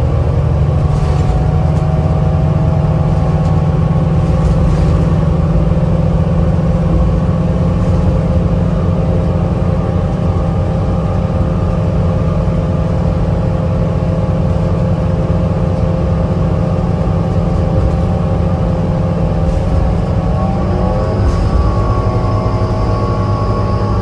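Cabin sound of a 2010 New Flyer DE40LFA diesel-electric hybrid bus under way: a steady low drone from the Cummins ISL diesel mixed with the whine of the Allison EP40 hybrid drive, with a few light rattles. Near the end the whine shifts in pitch as the bus changes speed, and a faint high-pitched whine comes in.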